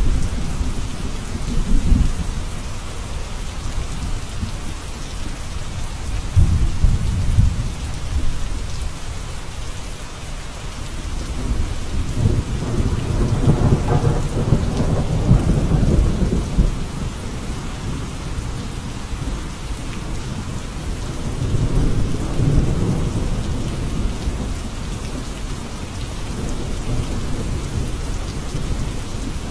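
Steady heavy rain hissing, with thunder rolling low beneath it in three swells: a short one a few seconds in, a longer, louder one midway, and a softer one about two-thirds through.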